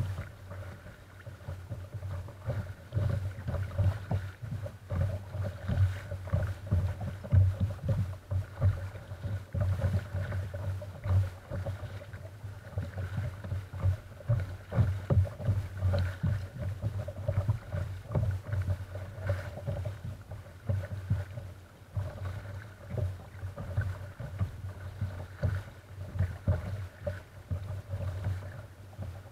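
Small waves slapping and lapping against the hull of a paddled kayak, heard as an irregular run of dull, low knocks several times a second.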